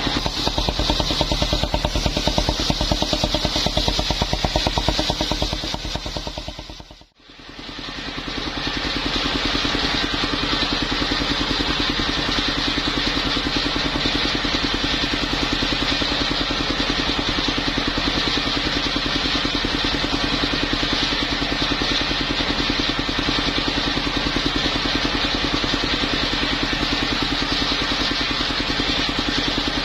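The engine of a mobile circular sawmill running steadily. About seven seconds in the sound fades out and then comes back.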